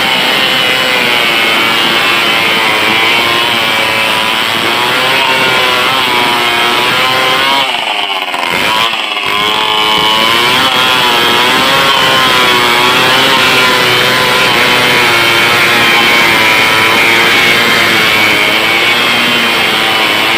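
Stihl 070 two-stroke chainsaw running hard through a big log, its engine pitch wavering under load. About eight seconds in, the engine briefly drops off, then picks back up.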